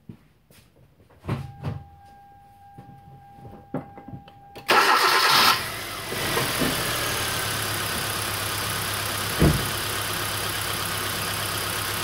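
A 2011 Kia Soul's four-cylinder engine cranks and starts about five seconds in, then settles into a steady idle, misfiring on one cylinder from a dead ignition coil, with a single short thump near the end. Before the start there are a few thumps and a steady electronic tone.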